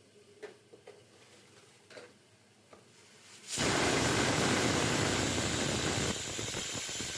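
Pigeon pressure cooker whistle going off: after a few faint ticks, a loud steady hiss of escaping steam starts suddenly about three and a half seconds in and keeps blowing, easing slightly near the end. It is the whistle weight lifting to vent steam as the cooker reaches about 15 psi (1 kg/cm²).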